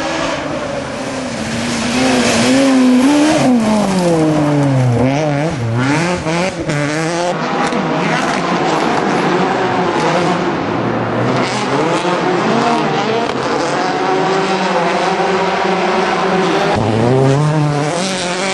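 Rally car engines at full throttle, revving up and dropping back repeatedly through gear changes as the cars pass. The pitch falls steeply about five seconds in, then climbs again as the car accelerates away.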